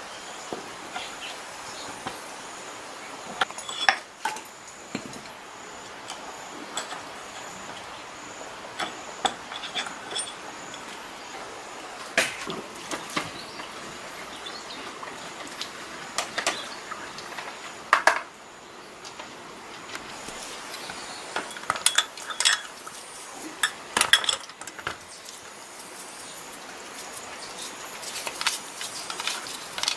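Metal tools and engine parts clinking and knocking as they are handled, in irregular short strikes, some sharper than others, over a steady faint hiss.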